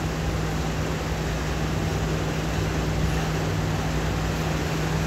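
Steady low machine hum under an even rushing noise.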